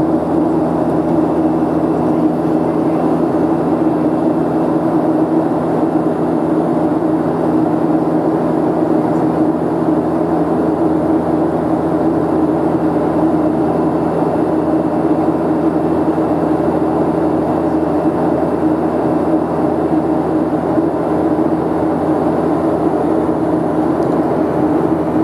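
Steady drone of a jet airliner heard inside the passenger cabin in flight: engine and airflow rush with a steady low hum, unchanging throughout.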